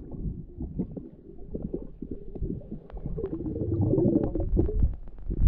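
Muffled underwater sound of moving water, a low rumbling with scattered small clicks, louder in the second half.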